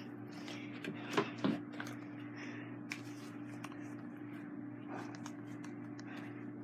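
Quiet handling noise of soft rustles and small clicks, over a steady low hum, with a short vocal sound about a second in.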